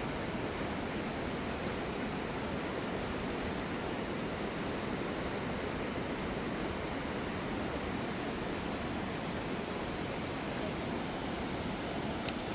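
Steady rushing of falling water, an even roar with no change, and one brief click near the end.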